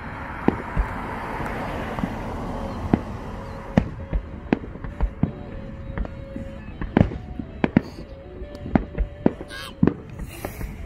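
Aerial fireworks shells bursting: a dozen or more sharp bangs at irregular intervals, with a hissing crackle in the first few seconds.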